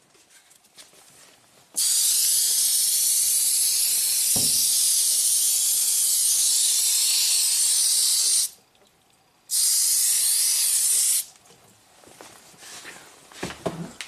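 Water spraying hard onto a windshield and cowl panel in a leak test, a steady hiss that runs for about six and a half seconds, pauses for about a second, then runs again for about two seconds and cuts off.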